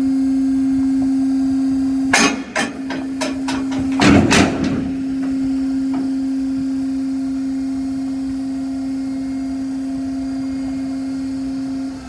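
A steady machine hum runs throughout. About two seconds in, a quick run of sharp knocks, like tool strikes or metal clatter, lasts about three seconds.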